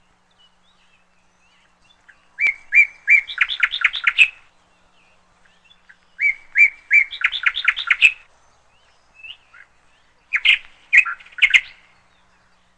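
A songbird singing three short phrases. Each phrase starts with a few spaced notes and speeds into a quick run, and the last phrase is shorter.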